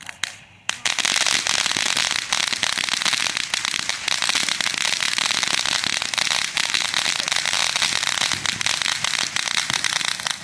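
Ground fountain firework spraying sparks: a couple of pops as it lights, then a loud, continuous hiss thick with fine crackling from about a second in, cutting off suddenly near the end as the fountain burns out.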